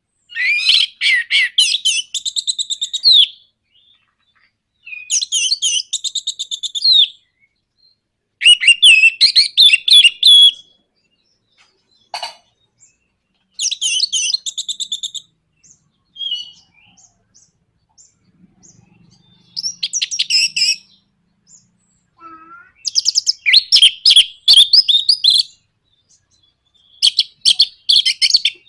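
Orange-headed thrush (anis merah) singing a fast, stuttering chatter (nratak) in repeated phrases of one to three seconds, with short pauses and a few single notes between them. This is a song recording used as a lure to get other thrushes singing.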